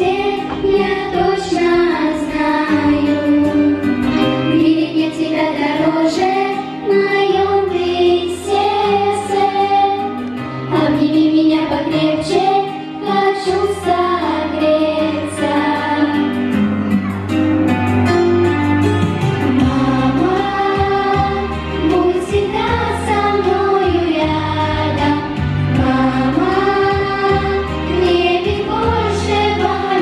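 Children's choir of girls singing a song together into microphones, amplified through the hall's speakers, over an instrumental accompaniment with sustained bass notes.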